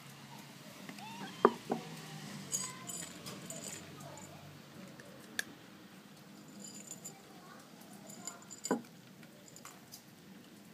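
A dish clinking as it is set down on wooden boards and dry cat food clattering onto it, with two sharp clicks then a run of thin clinks. A cat then eats the dry kibble, with a few sharp crunching ticks.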